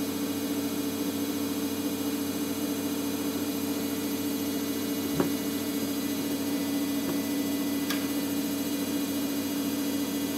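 A steady, even hum, with one light click about halfway through and fainter clicks a couple of seconds later as the plastic head of a small tripod is handled.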